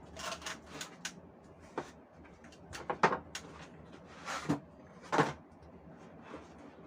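Cardboard box and packaging being handled during an unboxing: scattered rustles and short knocks, the sharpest about three seconds and five seconds in.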